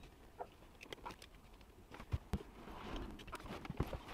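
Faint, scattered small clicks and taps of hands and a tool working on the steering wheel's plastic shift-button assembly, about eight in all, spread unevenly.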